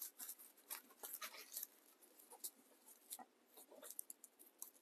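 Faint, scattered crackly rustling of dry raffia strands being handled and spread out by hand.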